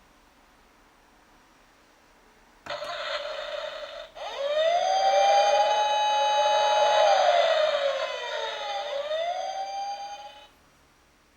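Toy Nissan Fairlady Z police car's electronic siren. After a short steady tone it wails up, holds, falls and rises again, then cuts off.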